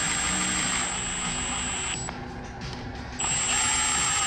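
Cordless impact driver spinning ARP head studs into the engine block threads on a hex bit: two runs of high motor whine, the first stopping about two seconds in and the next starting just after three seconds.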